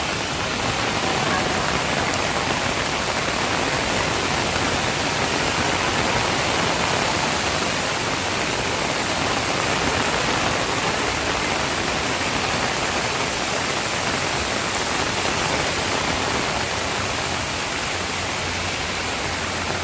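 Steady, unbroken rush of water from the flood, with no distinct drops or impacts standing out.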